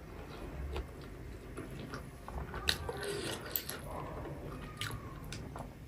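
Close-miked chewing of a mouthful of chicken momo, with soft wet smacks and mouth clicks, a few sharper ones about three seconds in.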